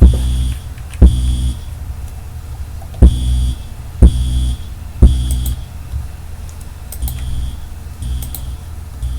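Fire alarm sounder going off in a temporal-three pattern: three short buzzy half-second tones about a second apart, a pause, then three more. Each tone starts with a sharp click, and a low hum runs underneath. The tones grow fainter after about six seconds.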